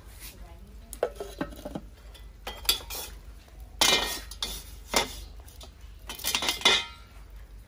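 Metal tongs and a clay pot lid clinking and knocking against a clay cooking pot and a charcoal stove: an irregular string of sharp clinks and clatters, loudest about four seconds in and again near the end.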